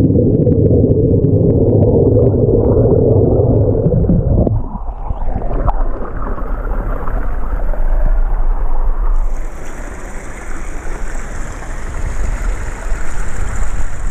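Muffled low rushing and bubbling of water heard with the microphone underwater at a bubbling hot-spring vent. About four and a half seconds in it changes abruptly to the open-air hiss of a flowing river, which grows brighter near the middle.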